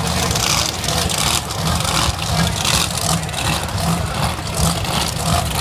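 Monster truck engines running at the drag strip start line: a loud, steady low rumble with noisy crackle above it.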